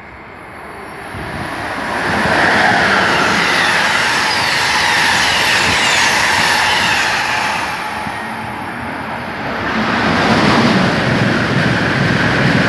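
Amtrak Northeast Regional train, a Siemens ACS-64 electric locomotive hauling stainless-steel coaches, passing the platform at speed: a loud rush of wheels and air that builds over the first couple of seconds and holds. After a short dip, a second swell begins about ten seconds in as an Acela Express trainset passes on the near track.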